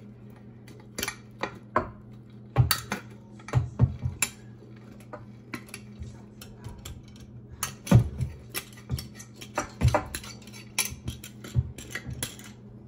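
Irregular clinks, taps and knocks of kitchen utensils against a mixing bowl, as cold butter is worked into flour for biscuit dough.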